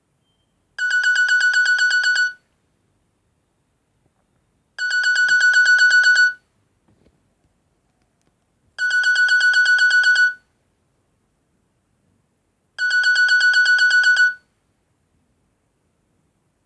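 Nokia N70 ringtone: a trilling electronic ring, a fast pulsing high tone, sounding four times, each ring about a second and a half long and repeating every four seconds.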